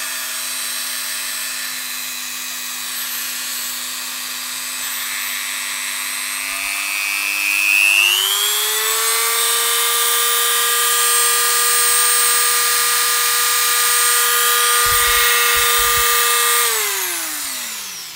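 BDcaT 6032 180 W mini drill (rotary tool) running free: a steady motor whine at a lower speed, which rises over about two seconds to a much higher top speed around eight seconds in and holds there. Near the end it is switched off and spins down, the whine falling in pitch until it stops.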